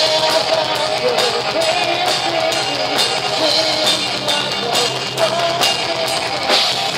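Rock band playing live: a sustained electric guitar melody over drum kit and cymbals, loud and continuous.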